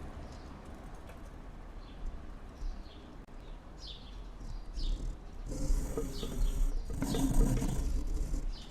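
Small birds chirping: short, quick falling calls repeated every half second or so. From a little past the middle a louder rushing noise with a low rumble comes in underneath.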